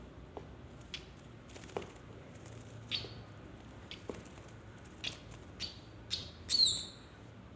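A small bird giving several short, high chirps, the last and loudest a squawk that falls in pitch near the end, with soft scattered taps in between.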